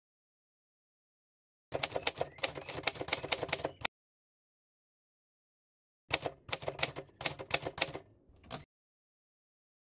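Typewriter sound effect: two bursts of rapid key clatter, each about two to three seconds long, with dead silence before, between and after them. The second burst tails off near its end.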